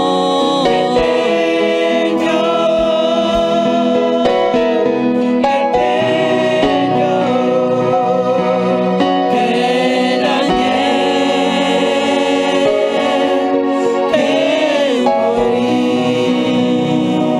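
Gospel worship song: singing voices over sustained instrumental backing.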